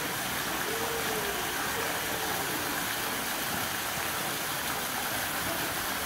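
Water from a decorative indoor waterfall pouring steadily into a shallow pond, a constant rushing splash.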